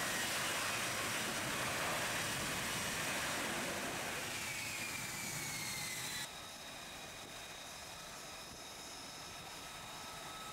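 F-35B stealth fighter's jet engine running loud as it hovers and sets down vertically on the carrier deck, its whine falling in pitch as the engine throttles back after touchdown. About six seconds in, the sound cuts abruptly to a quieter, steady jet whine held at several fixed pitches.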